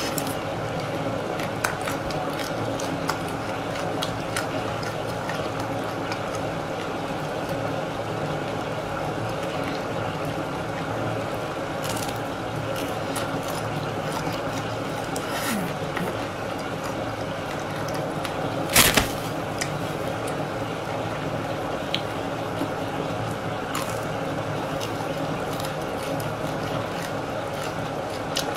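Close-miked eating of a frozen chocolate-coated ice cream bar: scattered small clicks of biting and chewing the hard chocolate shell over a steady background noise, with one loud sharp crunch about two-thirds of the way in.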